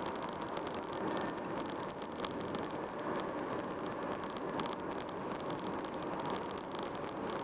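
Steady road and tyre noise of a car driving at freeway speed.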